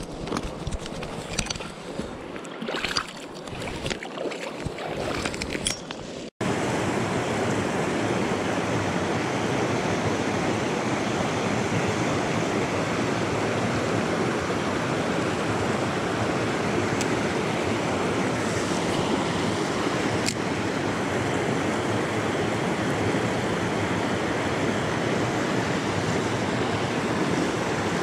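Steady, loud rush of river water running over rocks and rapids. In the first six seconds, lighter splashing and small clicks of handling at the water's edge come before a sudden break.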